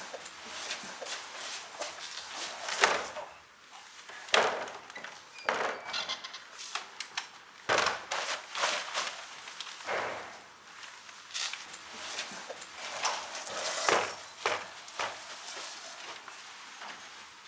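A limp body dragged across a hard tiled floor: irregular scrapes and scuffs of clothing and shoes sliding on the floor, about one every second.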